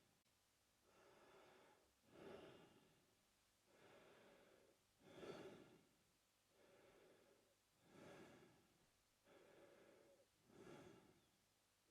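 A man breathing slowly through his mouth. There are about four full breaths in and out, one every three seconds or so, and each has a softer airy half and a louder, shorter half.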